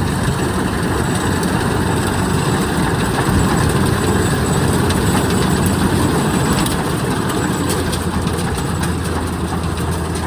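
Kubota DC-93 combine harvester's diesel engine running steadily while the machine works through a muddy rice field, with faint clicks and rattles from the machinery.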